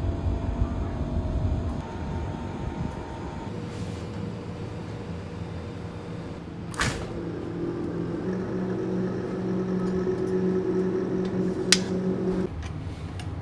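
Steady machine hum of a glass-door refrigerated cabinet, its fans running. The hum is strongest in the second half and stops abruptly near the end. A knock comes about seven seconds in, and a sharp click a little before the hum stops.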